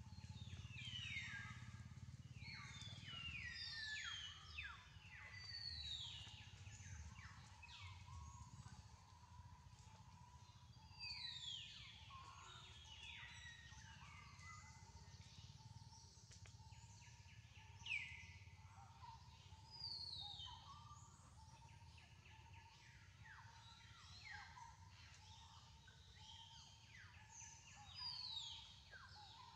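Birds calling in clusters of quick chirps that slide downward in pitch, over a faint steady tone and a low outdoor rumble.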